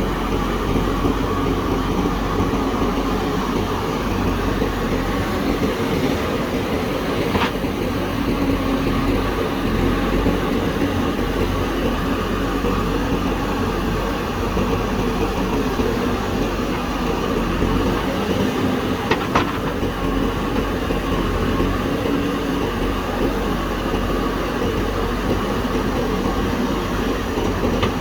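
JCB backhoe loader's diesel engine running steadily, with two sharp knocks, about seven and nineteen seconds in.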